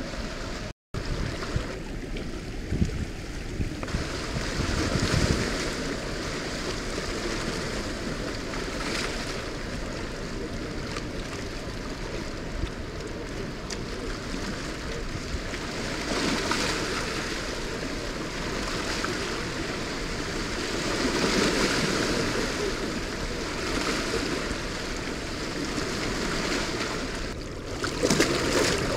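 Steady rush of fast-flowing water from a dam's tailrace release, with wind buffeting the microphone. The sound cuts out briefly about a second in.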